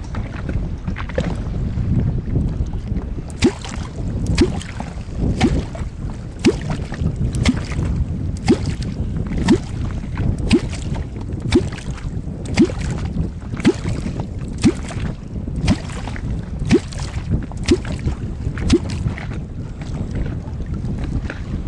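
A kwok (catfish call) struck into the water about once a second, each stroke a short, deep bloop that rises in pitch. It is used to call catfish up to the bait. The strokes start about three seconds in and stop near the end, over wind noise on the microphone.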